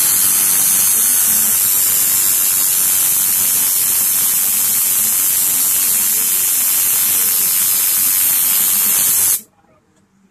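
Loud, steady hiss like static, with no pitch or rhythm in it, cutting off suddenly about nine seconds in.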